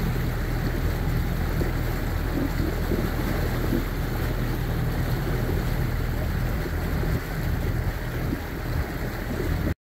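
Bass boat's outboard motor running steadily while the boat moves along, with wind on the microphone and water rushing past the hull. The sound cuts off suddenly near the end.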